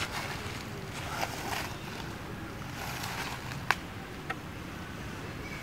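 Dry fallen leaves rustling and crunching under macaques' feet as they move over the leaf litter, with a sharp click, like a twig snapping, about two-thirds of the way through.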